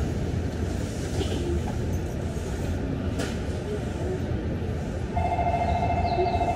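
Tokyo Monorail train running, heard inside the car: a steady low rumble from its rubber-tyred wheels on the concrete track beam. About five seconds in, a steady, fast-trilling electronic tone starts and keeps going.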